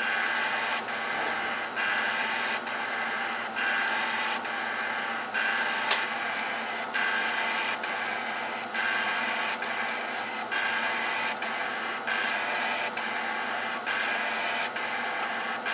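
Floppy drive head stepper seeking back and forth under repeated commands, a buzzing sweep that repeats a little more than once a second. The drive's head mechanism had been seized by old grease the consistency of peanut butter and has just been dug out and relubricated; it is being exercised to free it up.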